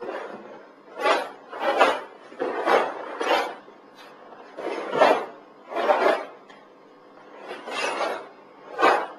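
Sounds of a karateka performing a karate kata: a series of short, sharp swishes with each technique, about ten in nine seconds at an irregular pace, with brief pauses between groups of moves.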